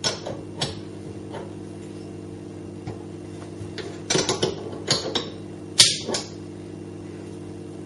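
Spanner working the M12 nut on a threaded-bar jig under an espresso machine's piston: scattered short metal clicks and clinks, the loudest a little before six seconds in, over a steady low hum.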